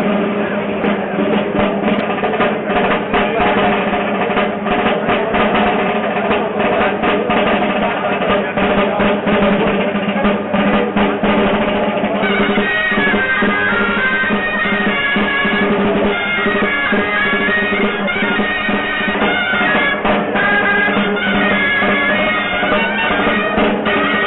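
A street band of dolçaina shawms and a tabal drum playing. The drum keeps up rolls and strokes under held shawm tones, and about halfway in the shawms move into a higher, stepping melody.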